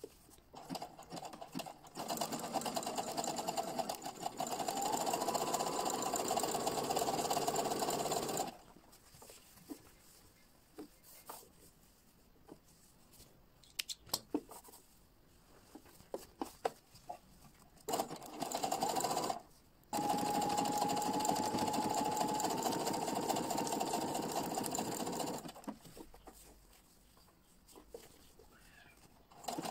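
Domestic electric sewing machine sewing a wide overcast zigzag stitch along a fabric edge, running in three spells of several seconds with a steady whine that rises in pitch as it picks up speed. Between the runs the machine stops and there are small scattered clicks.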